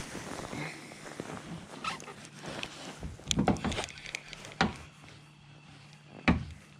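Scattered knocks and thumps over a faint steady low hum, the loudest thump near the end.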